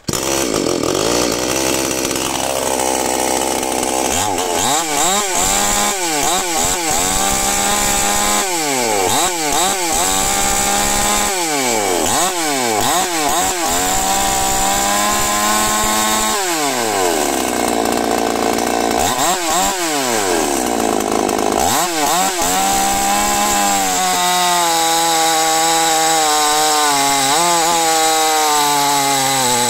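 Chinese two-stroke chainsaw running hard and cutting wood, its engine speed repeatedly dropping and climbing again. Over the last few seconds it holds a steadier high-revving note.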